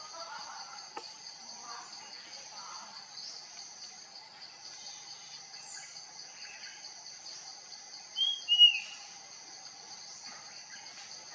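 Puff-throated babbler giving two short, clear whistled notes, each falling at the end, about eight seconds in, over a steady high insect buzz.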